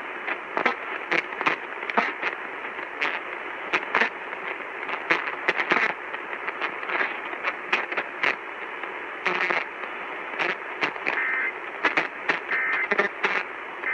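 Radio receiver hiss full of crackling static between broadcasts. Near the end come short bursts of warbling digital tones, the EAS end-of-message code that closes the alert.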